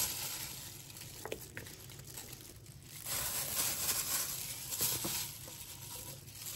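Clear plastic food-prep glove crinkling and rustling while raw chicken thighs are handled and laid into a slow cooker.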